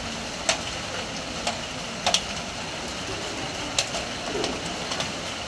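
Steady rain falling on a corrugated metal roof: an even hiss with sharp drip ticks striking the sheeting at irregular intervals, about once a second.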